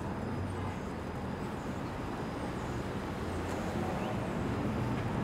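Steady traffic noise: a continuous low hum of passing vehicles with no single event standing out.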